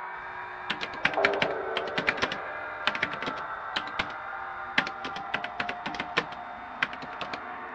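Typing on a computer keyboard: quick, irregular runs of keystrokes with short pauses between them, starting about a second in.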